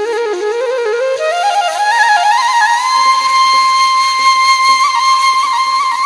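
Sad Balochi flute music: a solo flute melody climbs step by step over about three seconds, then holds a long high note with small ornamental turns.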